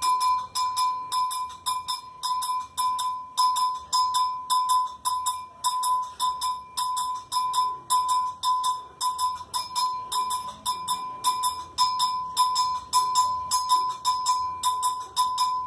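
A metal bell struck over and over in a steady repeating rhythm, about three strikes a second, with bright jingling overtones and a ringing tone that carries between strikes.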